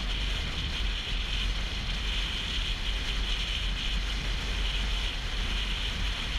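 Steady wind rush buffeting the microphone of a motorcycle riding at highway speed, with a deep rumble of wind and road noise underneath.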